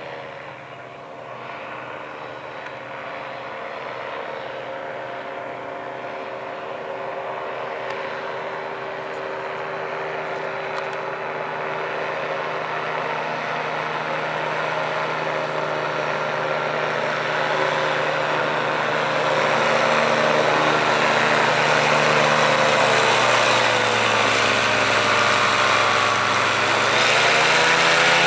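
Powered parachute's propeller engine running with a steady drone that grows louder as the trike comes in low. Near the end the pitch dips and then climbs as the engine is throttled up to fly away from the touch and go.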